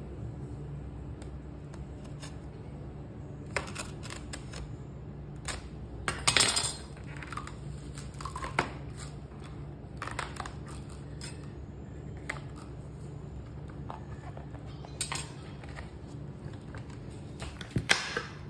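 A knife cutting and prying apart the fibrous layers of a coconut palm heart on a stone counter: irregular crackles, scrapes and knocks, loudest about six seconds in and again near the end, over a steady low hum.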